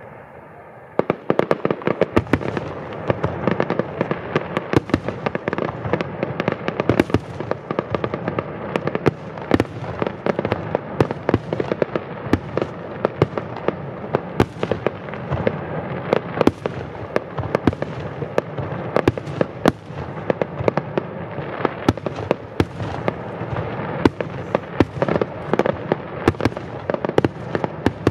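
Aerial firework shells bursting in a dense, unbroken barrage of bangs and crackling, which sets in about a second in.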